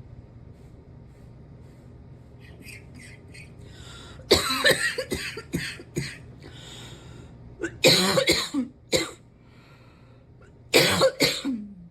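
A person coughing in three bouts: a run of several coughs about four seconds in, another bout near eight seconds, and a last one near the end. It is a cough that is still hanging on.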